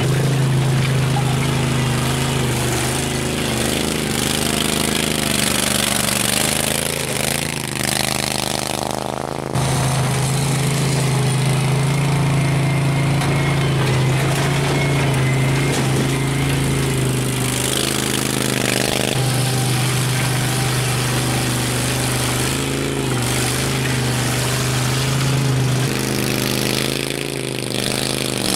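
Engine of a small homemade tracked vehicle running at a fairly steady pitch as the vehicle drives over rough, rocky ground. The sound breaks off abruptly about nine seconds in and picks up again.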